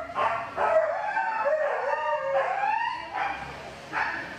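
A dog howling, a series of drawn-out calls that rise and fall in pitch, with a short sharper call near the end.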